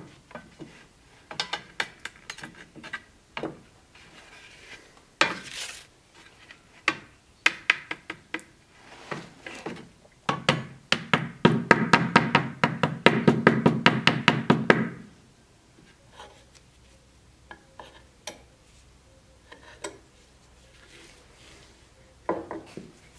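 A small hammer tapping quickly and evenly on a thin metal sheet, about nine light blows a second for about five seconds midway. Before that come scattered single knocks as tools and wooden parts are handled on the workbench.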